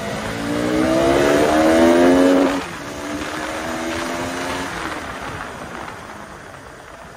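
KTM Duke 200's single-cylinder engine accelerating, its pitch climbing for about two seconds and then dropping sharply at an upshift, pulling again in the next gear and getting quieter near the end as the throttle eases.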